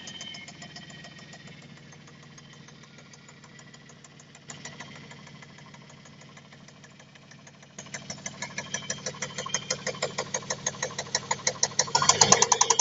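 Dodge Intrepid's 2.7-litre V6 idling just after starting, with a fast, regular knock that turns louder and sharper about eight seconds in and again near the end. The cause of the knock is unknown.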